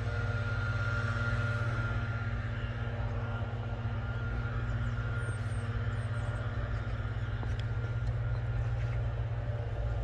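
Steady low rumble with a faint steady higher tone running through it, and a few faint high chirps about five to six seconds in.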